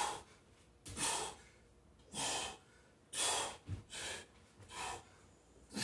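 A man breathing hard and forcefully from exertion during a set of dumbbell push-ups. There is a sharp, noisy breath about once a second.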